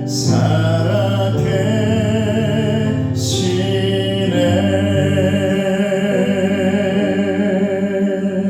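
The closing bars of a worship song: a singer holds long notes with vibrato over sustained accompaniment, with a short hiss near the start and again about three seconds in.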